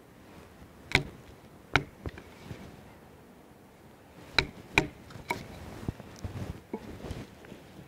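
Wooden baton striking the spine of a KA-BAR BK16 knife, driving the blade into wood to make an X cut. Sharp knocks: two strong blows about a second apart near the start, then another run of blows from about four and a half seconds in, tailing off into lighter taps.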